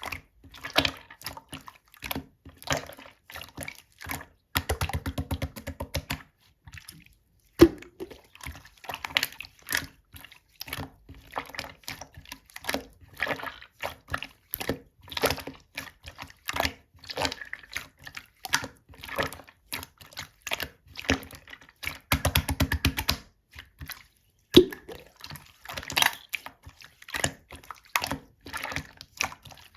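Clear slime being squished and pressed by hand: a steady run of wet, sticky clicks and small air-bubble pops, with two stretches of fast crackling.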